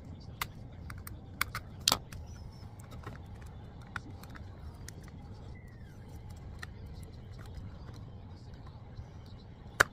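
A plastic car trim piece being handled and worked with a plastic vinyl tuck tool: scattered light clicks and taps as the vinyl is pressed around its edges, with a sharp click just before the end. A steady low hum runs underneath.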